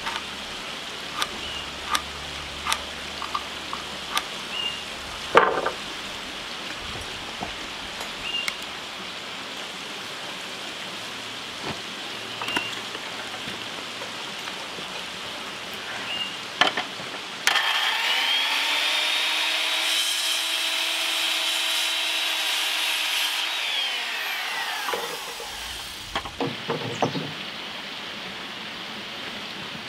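Corded Skil circular saw spinning up, cutting through a wooden board for about six seconds, then winding down. Before it, scattered light clicks and knocks of lumber and tools being handled.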